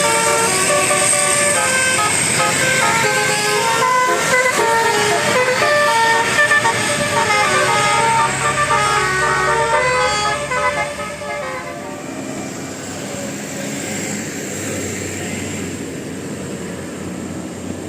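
Bus 'telolet' basuri horn, a multi-trumpet horn, playing a quick melody of stepped notes for about ten seconds, then stopping. Vehicle engine and road noise continue underneath and after.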